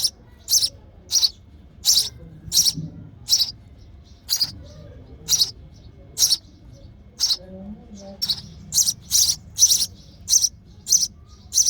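A baby sparrow in the nest chirping over and over, short high peeps at a steady pace that come a little faster near the end: a hungry chick begging its parent for food.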